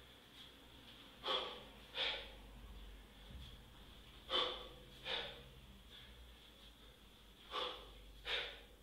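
Sharp, forceful breaths of a kettlebell lifter doing one-arm snatches, two quick exhales per rep in an even rhythm, three pairs in all.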